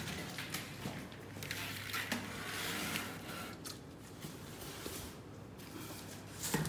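Rustling and scattered light knocks of packing being handled in a cardboard shipping box, with a sharper knock near the end.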